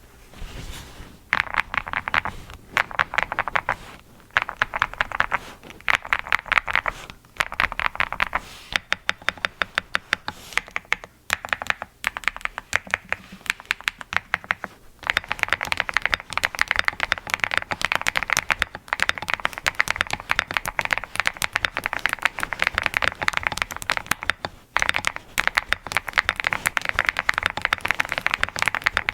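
Typing on an Angry Miao Cyberboard R4 mechanical keyboard with redwine switches and JTK HSA keycaps: fast runs of key clacks, with brief pauses between the bursts.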